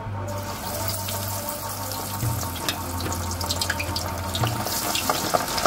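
A masala-coated pomfret sizzling as it goes into hot oil. The hiss starts a fraction of a second in and carries on with scattered crackles and pops.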